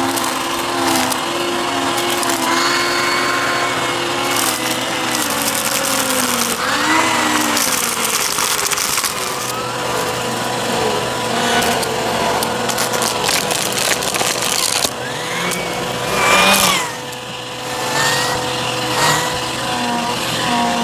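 Bissell CleanView upright vacuum running while sucking up a crunchy mess, its motor whine shifting in pitch several times over a steady crackle of debris rattling up the nozzle. A loud surge comes about sixteen seconds in, then the sound briefly drops.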